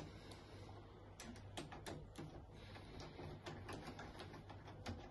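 Faint, irregular clicks and ticks of a Pozidriv PZ2 screwdriver turning out the retention screw that holds a barrel lock in a uPVC door's edge.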